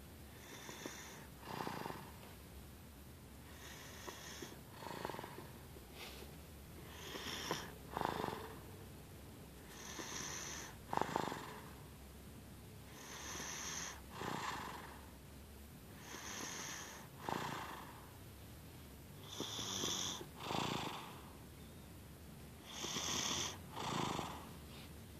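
Baby snoring in his sleep, slow and regular, about one breath every three seconds. Each breath comes as two quick snores, a higher hissing one and then a lower one.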